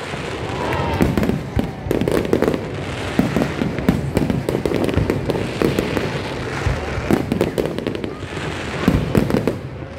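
Fireworks display going off: aerial shells bursting in a dense, continuous string of bangs and crackles.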